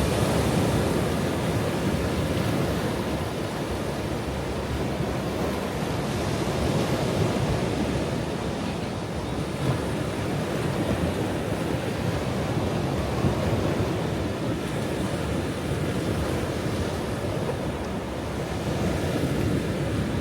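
Ocean surf: waves breaking and washing in a continuous rushing noise, swelling and easing gently.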